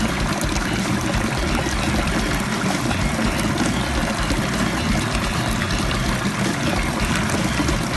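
Steady running water, a continuous hiss and splash that does not change.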